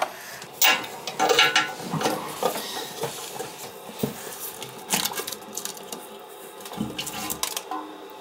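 Scattered light metallic clinks and knocks of hand tools and loose metal fittings being handled, with some rustling between them.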